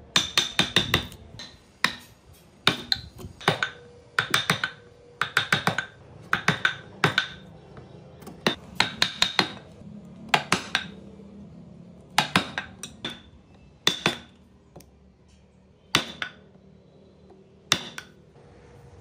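A steel wood chisel being struck in quick runs of sharp, ringing taps as it cuts into a wooden block. Near the end the runs thin out to single taps a second or two apart.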